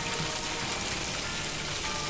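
Cartoon sound effect of a water spray pouring down in a steady hiss, over background music.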